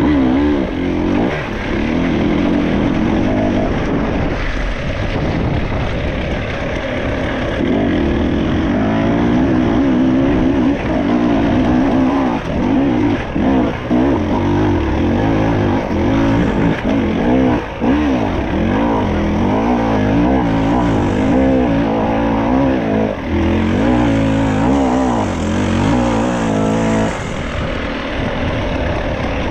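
Enduro dirt bike engine heard from on the bike while it is ridden over a rough forest track, its revs rising and falling constantly with the throttle. Its level drops off a couple of seconds before the end.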